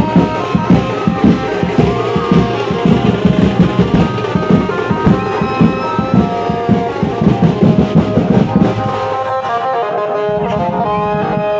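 Loud music with a fast, dense drum beat under a melody. About nine seconds in the drumming drops away and held melodic notes carry on.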